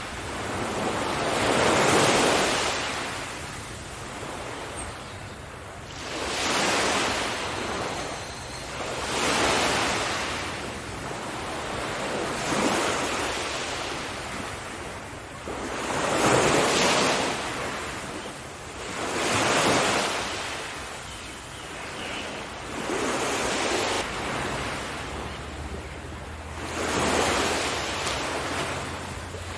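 Sea waves breaking and washing up one after another, about every three to four seconds, each surge swelling and then falling away.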